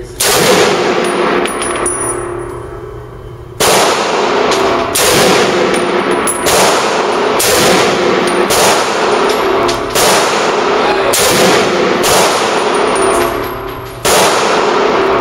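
M1 Garand semi-automatic rifle (.30-06) fired shot after shot, about nine in all, each shot ringing on in the enclosed range. One shot comes just after the start, then a pause of about three seconds, then the rest follow every one to two seconds.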